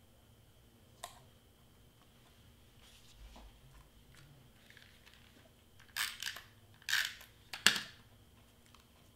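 Cardstock being handled and flipped on a cutting mat: a faint tick about a second in, then a few short, sharp rustles and crinkles of stiff paper between about six and eight seconds in.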